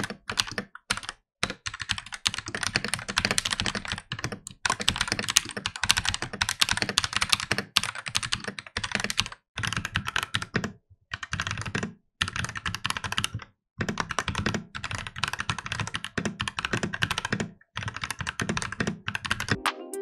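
Fast typing on a Royal Kludge RK68 65% mechanical keyboard, recorded close up. For the first half it has its stock Cherry MX Red linear switches. From about halfway it has Feker Holy Panda tactile switches under PBT keycaps. There are a few short pauses between bursts of keystrokes.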